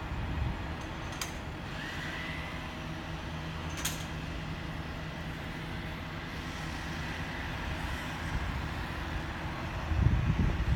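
Mobile hydraulic crane's diesel engine running steadily while it holds a large suspended satellite dish, with a faint high whine coming in about two seconds in and two sharp clicks.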